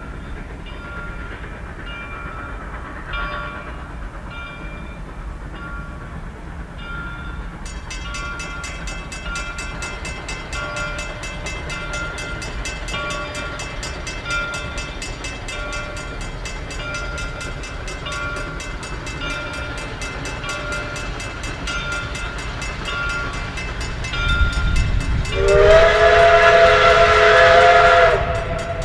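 Reading & Northern 425, a 4-6-2 steam locomotive, approaching under steam with a steady low running rumble that grows louder. Near the end it gives one long blast of its multi-note chime whistle, about two and a half seconds long.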